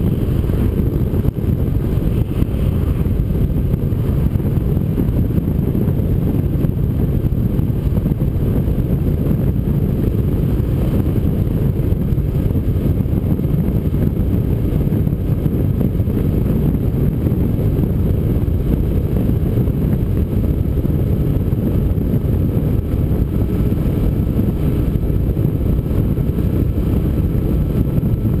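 Motorcycle cruising at a steady speed, heard from its windshield: a steady low rumble of engine and wind rush across the microphone, with no gear changes or revving.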